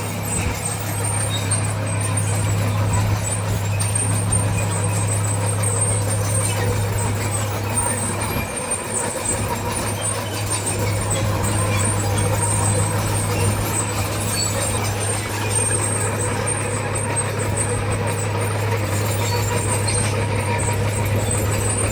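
Heavy diesel earthmoving machinery running under steady load, a constant low engine drone with no breaks.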